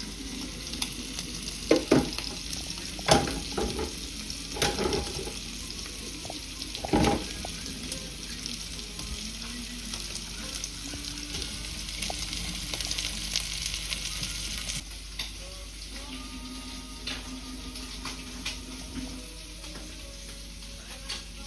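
Lamb sizzling in a hot frying pan with a steady hiss, and sharp knocks of a utensil against the pan several times in the first seven seconds. The sizzle drops away sharply about fifteen seconds in.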